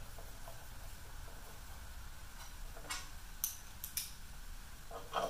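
A few light metallic clicks and ticks from a screwdriver and Torx screws being hand-threaded into the blade cover of a planer's cutterhead. The clicks are scattered, mostly in the second half, over a low steady hum.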